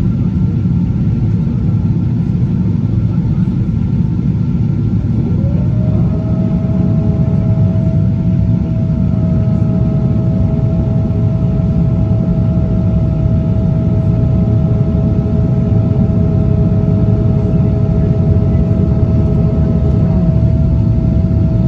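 Cabin noise of a Boeing 777-200 on approach: a steady low roar of engines and airflow, with a whine that rises in pitch about five seconds in and then holds steady.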